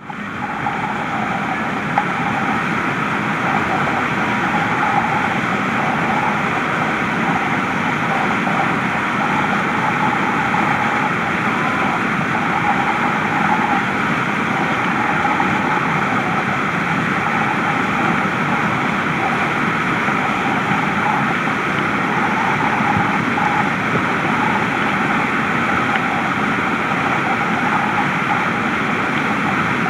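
Steady rush of big whitewater rapids, with the standing wave breaking constantly.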